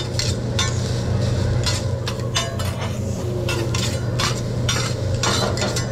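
Two metal spatulas scraping and clacking on a steel hibachi griddle as fried rice is chopped and tossed, a quick irregular run of scrapes and clanks, over a steady low hum.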